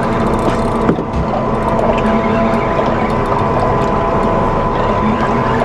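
Spinning fishing reel being cranked against a hooked fish, its gearing ticking rapidly, over the steady hum of the boat's running engine.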